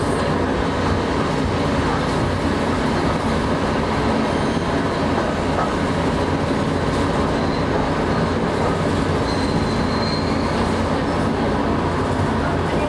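Fukui Railway 610-series high-floor tram running on street track, heard from inside the driver's cab: a steady rumble of motors and wheels on the rails. A faint high tone rises briefly over it about nine seconds in.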